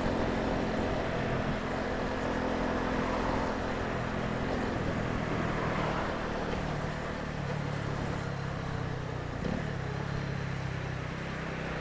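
Honda CB125R's single-cylinder four-stroke engine running at low speed, its note dropping lower about seven seconds in.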